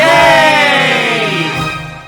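Background music with a loud, wavering pitched tone that comes in suddenly and slides steadily down in pitch for about two seconds as it fades, like a cartoon falling sound effect.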